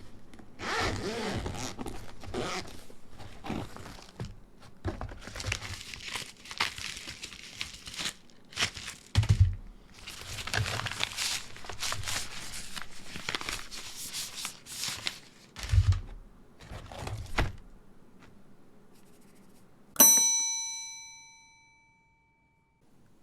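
Ophanim custom mechanical keyboard being typed on: fast, uneven key clicks with a few heavier thocks, stopping after about seventeen seconds. Near the end, a single sharp metallic ding rings out and fades over about two seconds.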